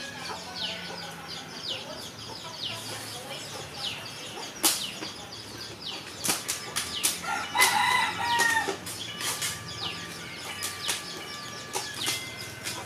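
Chickens in the background: repeated short, falling peeps and clucks, with a rooster crowing about seven and a half seconds in. Sharp clicks scattered through, from rabbits crunching feed pellets.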